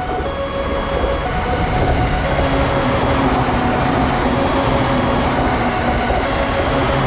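Shinkansen train running past: a dense rush of rail noise that grows louder over the first two seconds and then holds steady, with held electronic tones sounding over it.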